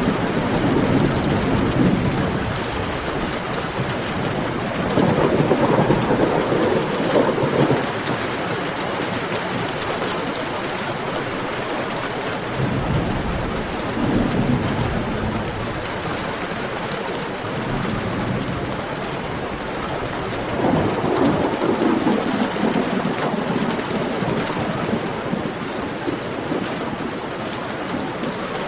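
Heavy rain pouring steadily, with low rolling rumbles of thunder swelling up three times.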